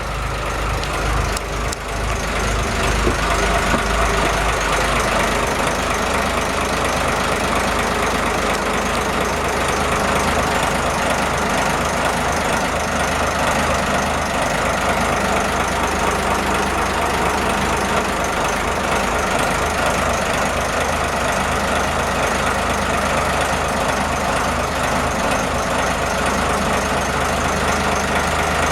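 A Kyoritsu Resin Craft boat's engine idling steadily, with a heavier low rumble for about the first five seconds that then settles.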